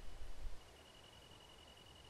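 Wind rumbles low on the microphone for about the first half second, then dies down. Behind it an insect trills steadily at one high pitch, with a brief break about half a second in.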